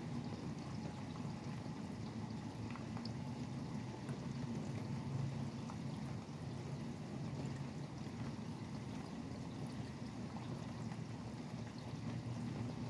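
Steady rain falling, with a low hum of highway traffic underneath and a few faint drop ticks.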